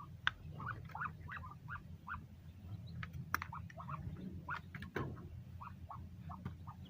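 Muscovy ducks calling: many short calls repeated several times a second, with a few sharp clicks and a steady low hum underneath.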